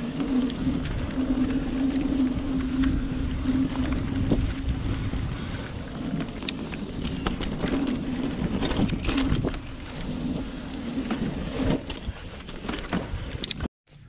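Hyper Hydroform 29er full-suspension mountain bike ridden along a dirt singletrack: tyres rolling with a steady rushing noise, and sharp clicks and rattles from the bike over bumps, several of them bunched in the middle and again near the end.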